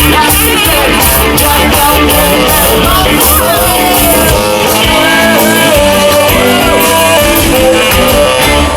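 Ska band playing live, loud, with a singer over a steady drum beat.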